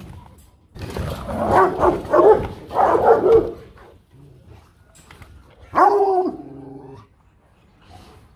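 Rottweilers barking: a quick run of loud, deep barks for about three seconds starting a second in, then one more bark with a drawn-out tail near the end.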